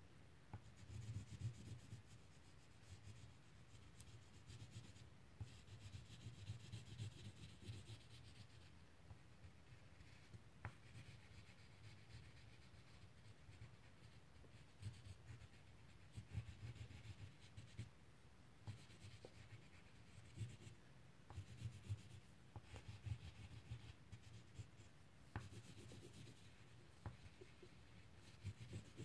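Faint scratching of a wax crayon rubbed back and forth on paper, coming in spells with short pauses between them.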